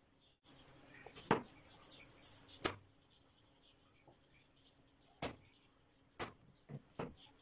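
Corded electric staple gun firing, six sharp snaps at irregular intervals as it drives fasteners into a wooden board, the last few coming in quick succession.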